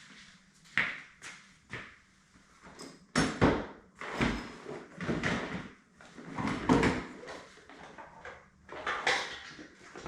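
Rummaging among hard objects: an irregular run of knocks and clatters as tools are handled, a few louder clunks about three to four seconds in and again near seven seconds.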